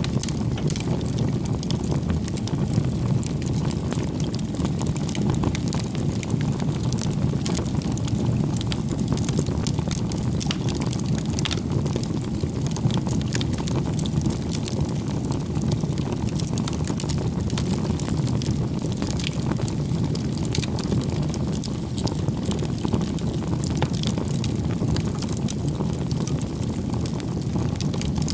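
Wood fire burning: a steady low rush of flames with frequent sharp crackles and pops from the burning wood.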